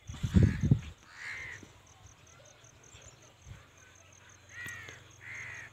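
A crow cawing three times, short harsh calls about a second in and twice near the end. A loud low rumble in the first second is the loudest sound.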